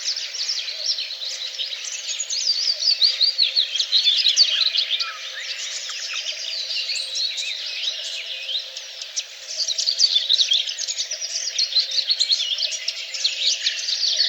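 Several songbirds singing at once: a dense chorus of quick, overlapping high chirps and trills.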